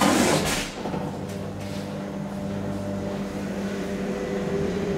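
DEVE hydraulic elevator in motion, heard from inside the car: a short loud burst of noise right at the start, then a steady mechanical hum from the running drive.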